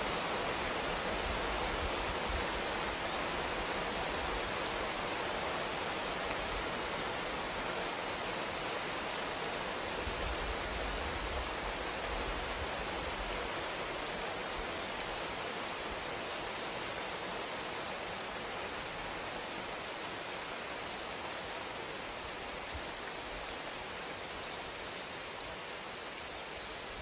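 Steady rain falling, a dense hiss with fine ticks of individual drops, slowly getting quieter.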